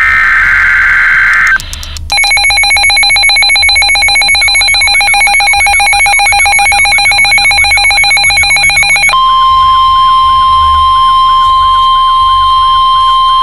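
Emergency alert tones: a screeching digital data burst for about a second and a half, then a fast-pulsing buzzy alarm tone for about seven seconds, then, from about nine seconds in, the steady 1050 Hz NOAA Weather Radio warning tone with a warbling sweep under it.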